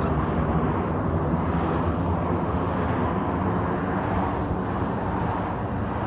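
Jet engines of a large aircraft, a steady low rumble that eases slightly toward the end.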